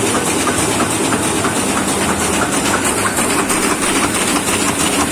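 Sheet-fed offset printing press running, a steady loud mechanical clatter with a constant high hiss over it.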